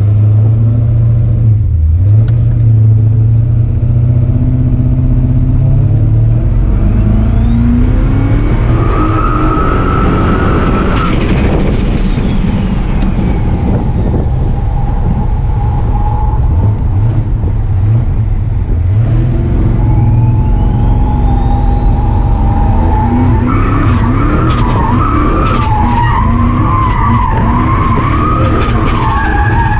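Turbocharged V8 of a Dodge pickup driven hard while drifting: the engine revs climb and hold near the top, fall away, then climb again in a series of stepped pulls, with tyre squeal wavering over the engine in the later part.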